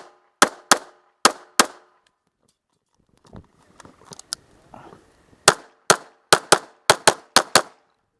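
Pistol fired rapidly on a timed action-shooting stage: four quick shots, a pause of about four seconds with faint shuffling and clatter, then eight more shots in fast pairs.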